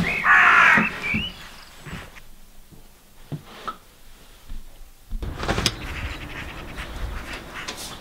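A crow cawing loudly for about the first second, then a low rumble from about five seconds in.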